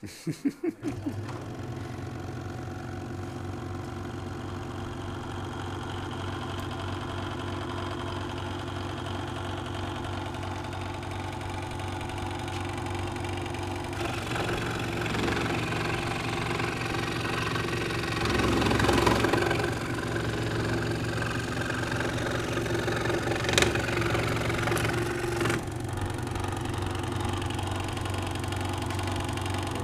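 Craftsman scroll saw starting up, then running with a steady hum from its reciprocating blade. From about halfway a strip of wood is fed into the blade, adding a rougher cutting noise with a sharp click partway through. The saw runs free again for the last few seconds.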